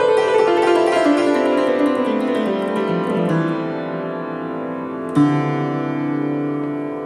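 Instrumental music: a fast run of notes descending in pitch, then a chord struck a little past five seconds that rings on and fades.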